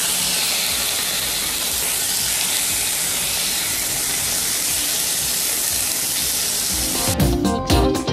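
Raw chicken strips sizzling steadily in hot oil in a cast iron skillet. About seven seconds in, strummed guitar music comes in over it.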